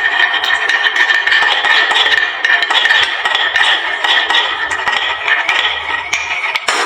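Many marbles rolling and clattering down a HABA wooden slope marble run: a dense, continuous rattle of clicks and clinks.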